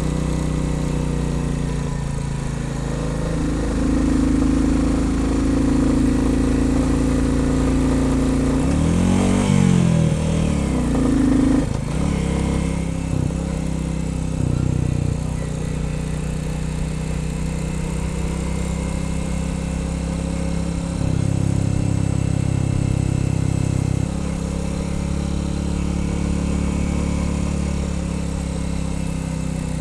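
Royal Enfield Bullet 350's single-cylinder engine running on the road at mostly steady throttle, its note stepping up and down a few times. About nine seconds in there is a brief sweeping rise and fall in pitch.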